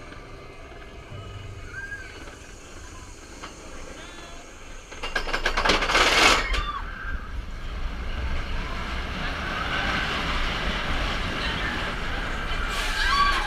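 Roller coaster train running along its track, heard from on board. About five seconds in it picks up speed with a loud rush of wind and clattering. Riders' yells come through it, and the rumble and wind noise carry on to the end.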